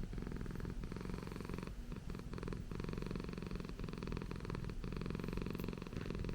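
Persian cat purring steadily.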